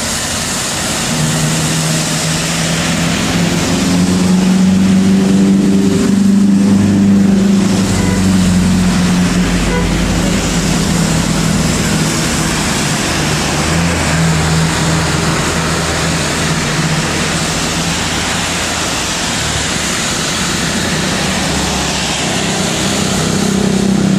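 Road traffic with heavy diesel vehicles, buses among them, passing close by. Engine drone swells and fades several times, loudest about four to eight seconds in, over a steady rush of tyre and wind noise.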